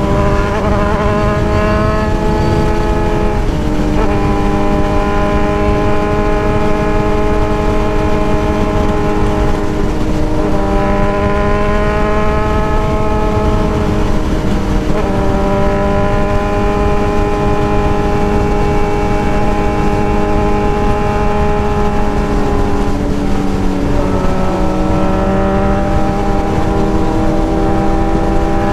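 Motorcycle engine running under way, its note drifting and shifting abruptly about four times, over a steady low rush of noise.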